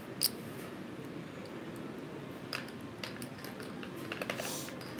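Casino chips clicking as the dealer picks up side-bet chips from the blackjack layout: a few sharp clacks, the loudest about a quarter second in and a small cluster near the end, over a steady background hum.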